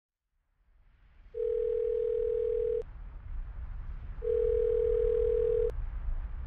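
Telephone ringback tone heard down the line: two long beeps on one steady pitch, each about a second and a half, each cut off with a click, over a low rumbling line hiss that fades in at the start.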